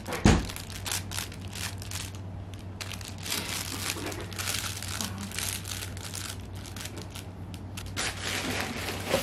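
Yorkie puppy chewing and tugging at a plush toy, with a run of irregular crinkling and rustling from the toy's fabric and a thump just after the start. A low steady hum runs underneath.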